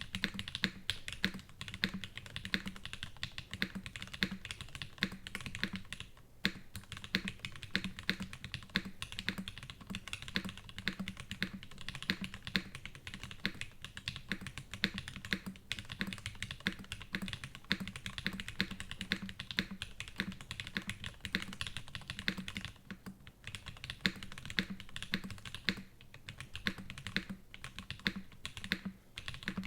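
Typing on a Geon F2-84 mechanical keyboard with lubed SP-Star Nana switches on an aluminium plate and PBT keycaps: a steady run of rapid keystrokes with a few brief pauses.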